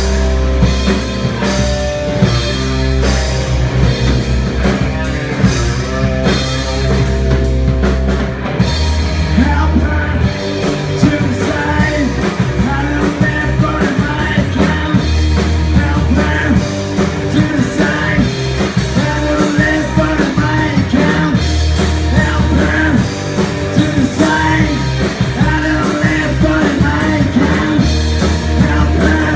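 Live grunge rock band playing loudly with drum kit, bass and electric guitar, with no words sung. About nine seconds in, a wavering lead line comes in over the steady bass.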